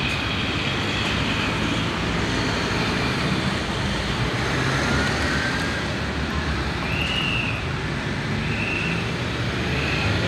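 Steady city street traffic: car and van engines running and tyres on the road. Three short high-pitched tones sound in the second half.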